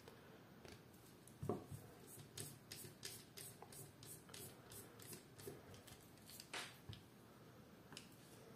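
Faint small clicks and scrapes of a slotted screwdriver turning out the side-plate screws of a Colt Trooper MK III revolver, a few clicks a second, with a louder click about a second and a half in and another near the end.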